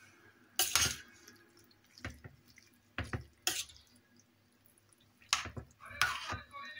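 Short splashes and drips of water in a kitchen, about half a dozen of them, each lasting a fraction of a second.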